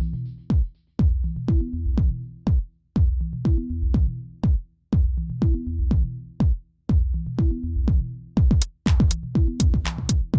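Electronic background music with a drum machine beat and a repeating bass line, about two beats a second, the percussion getting busier near the end.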